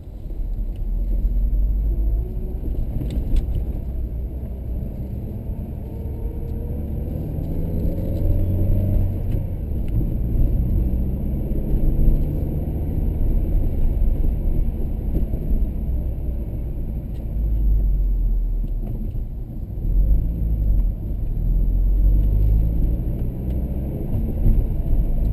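Car engine and road rumble heard from inside the cabin while driving along a street, the engine note rising as the car accelerates about six seconds in.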